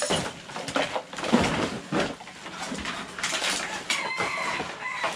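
Rustling and clatter of household junk and clothes being sorted by hand and stuffed into plastic rubbish sacks. A thin held tone comes in about four seconds in and lasts about a second.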